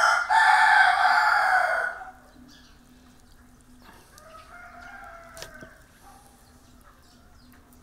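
A rooster crows loudly for about two seconds, then a second, fainter crow follows about four seconds in.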